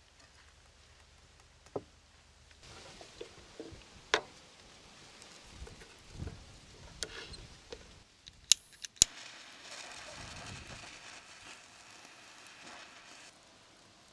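Quiet handling clicks and knocks, then two sharp clicks of a lighter being struck a little past halfway, followed by a steady hiss for about four seconds as the flame lights a wood-wool fire starter.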